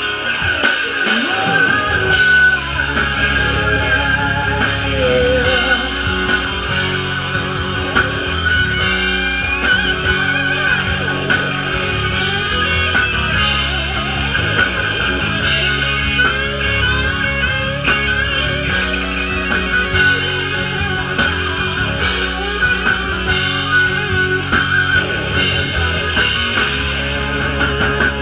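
Live rock band playing an instrumental passage on electric guitars, bass guitar and a drum kit, with a harmonica wailing over the top.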